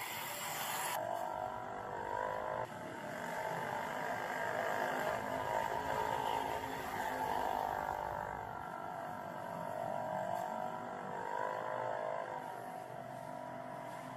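A steady droning hum of many layered tones that swells in the middle and eases off toward the end.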